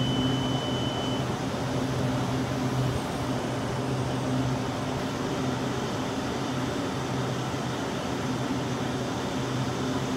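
Taiwan Railway EMU800 electric train humming steadily at close range, its roof air-conditioning and auxiliary equipment running, with no rise in pitch. A short high tone sounds in the first second.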